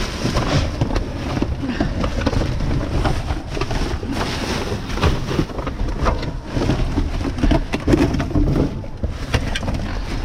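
Rummaging through a dumpster: plastic bags and trash rustling continuously, with many small knocks and clatters of objects being moved.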